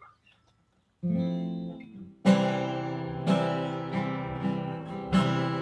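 Acoustic guitar strumming the opening chords of a worship song. A first chord sounds about a second in, then full strums come about once a second.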